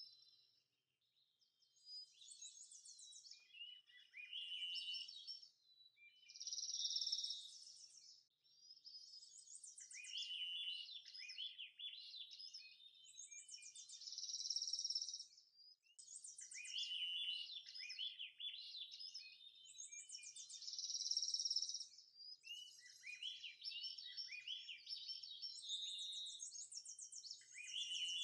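A songbird singing, repeating a phrase every three to four seconds: a high buzzy trill followed by a run of quick falling notes.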